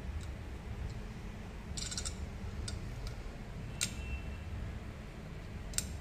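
Several light, sharp clicks of small metal hand tools, tweezers and a soldering iron tapping on a metal PCB holder, the sharpest about four seconds in and near the end, over a steady low hum.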